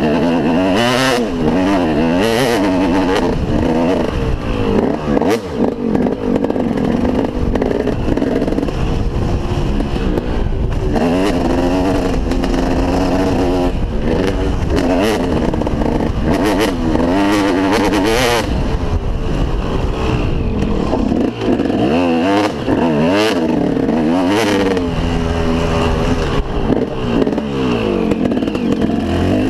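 2003 KTM SX 250 two-stroke motocross engine revving up and dropping off again and again as the bike is ridden round a dirt track, heard from a helmet-mounted camera. Occasional short clatters from the bike on the bumps.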